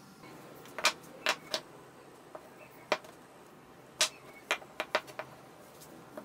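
Small cut wooden pieces knocking against each other and being set down on a wooden tabletop: a string of short, sharp clacks at irregular intervals. The loudest come about a second in and again about four seconds in.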